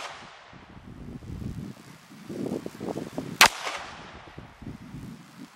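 A single gunshot about three and a half seconds in, sharp and loud, with a short fading tail.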